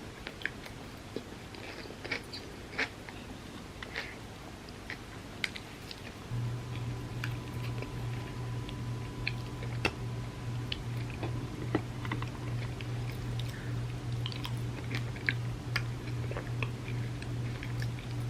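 Close-up mouth sounds of someone biting and chewing soft cookie cups layered with crisp chocolate wafers: scattered crunches and wet chewing clicks. A low steady hum comes in about a third of the way through.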